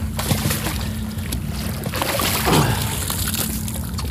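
A hooked fish splashing and thrashing at the water's surface as it is scooped into a landing net, with a louder burst of splashing a little past halfway. A steady low hum runs underneath.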